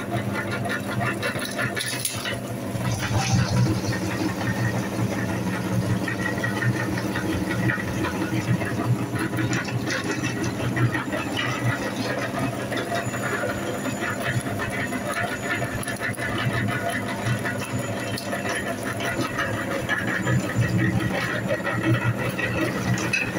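A belt-driven cast-metal meat grinder running steadily: a motor hum with a rattle as rubbery toy balls are fed in and minced.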